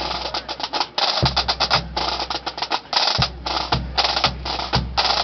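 Pipe band drum corps playing a drum salute: high-tension snare drums rattle out rolls and sharp rhythmic strokes over a bass drum beating about twice a second.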